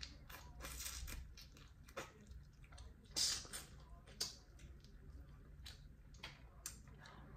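Close-up eating sounds of Dungeness crab: sucking meat from the shell and chewing, with many small clicks and crackles, and a couple of louder moments about three and four seconds in.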